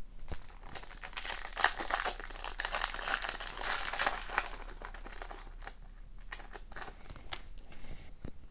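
Foil wrapper of an O-Pee-Chee Platinum hockey card pack being torn open and crinkled by hand, loudest in the first half. Fainter crackles and clicks follow as the cards are pulled out and handled.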